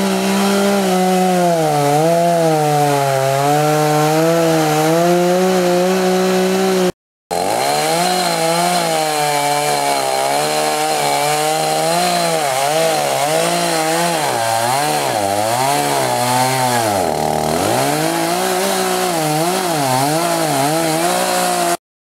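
Two-stroke chainsaw running at high speed, cutting through a pine trunk to fell it. Its pitch wavers and sags as the chain bites into the wood, with one deep bog-down about seventeen seconds in. The sound breaks off briefly about seven seconds in.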